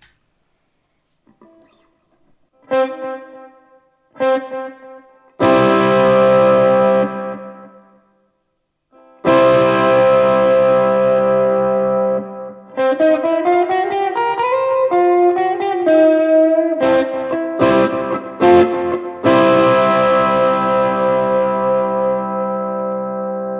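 Flight Vanguard solid-body tenor electric ukulele, steel-strung, played through overdrive and delay pedals into an amp. A few picked notes lead into strummed chords left to ring out. A quick run of single notes comes in the middle, and more chords are held near the end.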